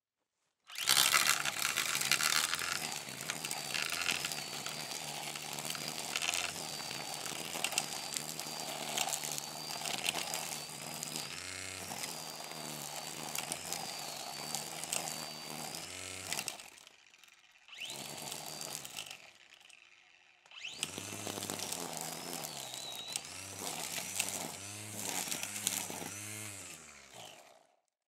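Brush cutter running hard, coming in abruptly about a second in, its pitch swinging up and down now and then as the throttle is worked. It drops away twice briefly past the middle, then runs through a series of quick revs before dying away near the end.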